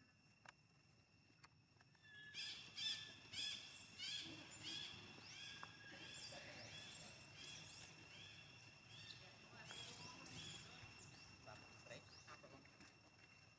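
A baby monkey crying: a run of short, high-pitched rising cries, about two a second, starting about two seconds in and thinning out near the end.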